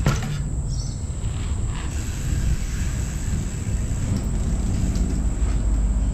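Wind buffeting the microphone in a loud, gusty low rumble as a storm approaches, with a few faint ticks.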